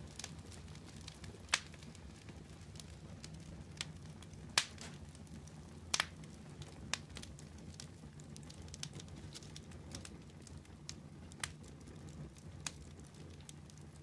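Wood fire of glowing embers crackling, with sharp pops at irregular intervals. The loudest pops come about a second and a half, four and a half and six seconds in, over a low steady rumble.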